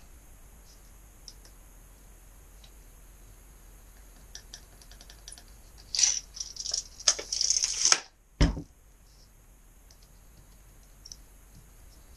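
Screen-frame pieces from a build-a-screen kit being handled and stacked: scattered light clicks, then about two seconds of dense rattling and scraping that stops abruptly, followed by a dull thump.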